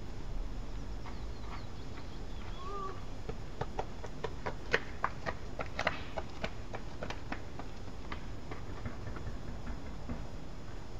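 Light clicks and ticks, densest from about a third to two thirds of the way through, from nestlings stirring in their grass-lined nest, with one faint short rising chirp near the start, over a steady low hiss.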